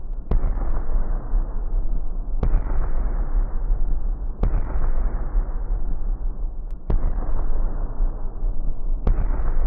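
See-through LiquidPiston rotary engine firing on acetylene, heard slowed down: deep bangs about every two seconds, each a sharp crack followed by a long rumbling rush that slowly dulls, over a steady low hum.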